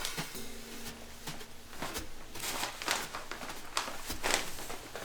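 Gift wrapping paper being torn and rustled as a present is unwrapped: a quick series of short rips and crinkles, busiest in the second half.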